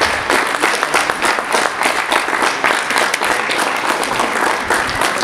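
Group of students applauding, a steady dense clapping throughout.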